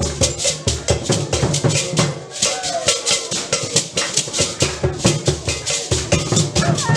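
Lively music with a shaker rattle keeping a fast, steady beat of about six strokes a second over deeper drum beats.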